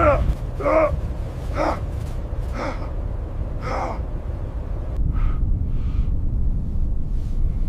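A person gasping for breath, five short strained gasps about once a second, then two fainter ones, over a steady low rumble of blizzard wind.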